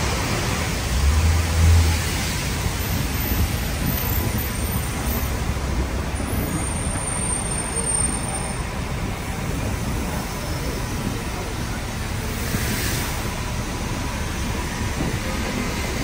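City street traffic with the murmur of passers-by, and a heavy low rumble of wind on the microphone that is strongest in the first two seconds. A brief hiss comes near the end.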